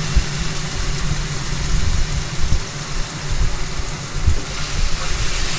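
Onions and mashed roasted eggplant frying in mustard oil in a kadhai on lowered heat: a steady sizzle over a low, steady hum.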